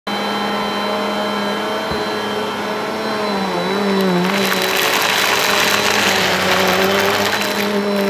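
Bissell upright vacuum cleaner running steadily with a brushroll on carpet. About four seconds in, it runs into a pile of small rubber loom bands, and the bands being sucked up add a dense clatter of tiny clicks over the motor for about three and a half seconds.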